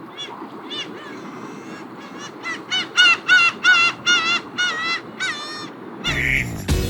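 Black-tailed gulls calling: a run of short, nasal, down-curving calls, about three a second, growing louder and strongest in the middle, over a low rushing background. Music comes in near the end.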